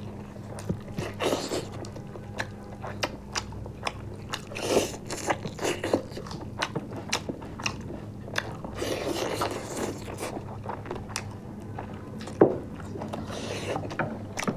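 Close-up eating sounds of people biting and chewing chicken and rice by hand, with many small wet mouth clicks and occasional crunches. A steady low hum runs underneath.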